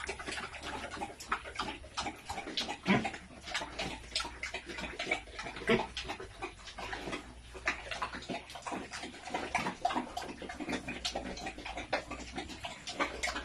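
Pigs eating feed from a trough: a rapid, irregular run of wet smacking and chomping clicks.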